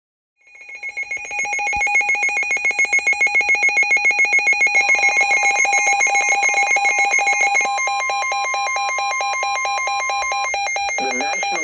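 Weather radio warning alert: a loud electronic alarm of rapidly pulsing beeps that starts about half a second in and changes its beat about two-thirds of the way through. A steady single tone, the NOAA Weather Radio 1050 Hz warning tone, joins it about five seconds in and stops near the end. The alert signals an incoming severe thunderstorm warning.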